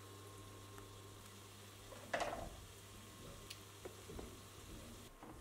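A pot of water at the boil, with a stock cube being stirred in by a wooden spoon; the stirring is loudest about two seconds in. A steady low hum runs underneath and stops near the end.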